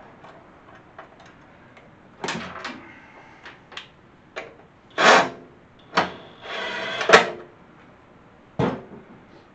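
Hand tools and steel bolts clanking and clattering against the tractor's steel frame as bolts are put in, in a string of separate knocks with a short rattling stretch just before 7 seconds in.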